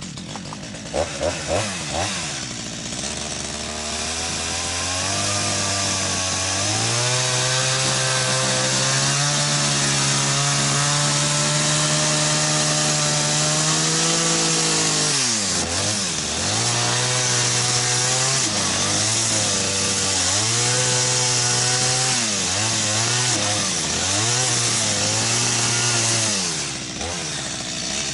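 Two-stroke chainsaw: it comes in with a few sharp pops and idles, then revs up about seven seconds in and runs high for several seconds. After that it goes through a series of short revs, its pitch dipping and rising, as it cuts a rough saddle notch into a log, before dropping back near the end.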